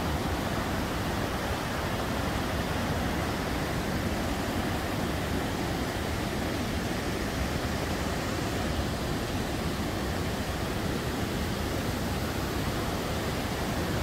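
Waterfall and fast river cascades rushing, a steady even noise with no let-up.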